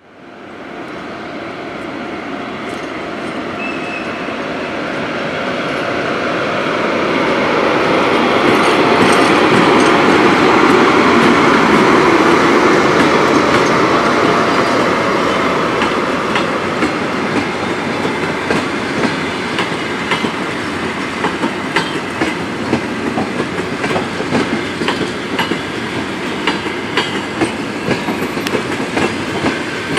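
Passenger train behind a ChS4 electric locomotive departing and rolling past. The rumble builds over the first ten seconds or so, then holds steady as the coaches go by, their wheels clicking over the rail joints.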